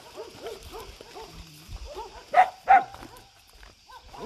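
Several dogs whining in quick rising-and-falling cries, with two loud barks a fraction of a second apart about halfway through.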